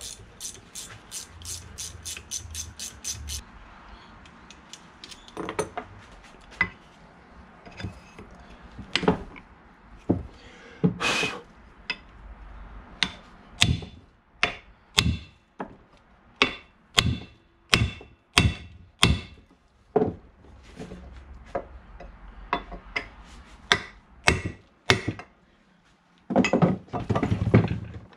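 Hammer knocking on metal differential parts in irregular single blows, roughly one to two a second. A fast, even run of about ten clicks comes in the first few seconds.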